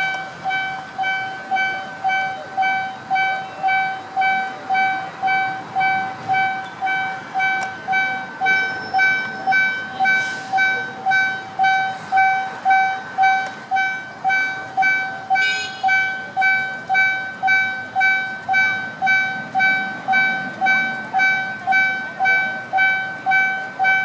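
Level crossing warning bell ringing steadily, a repeated electronic ding about twice a second with each stroke fading quickly: the crossing is closed for an approaching train.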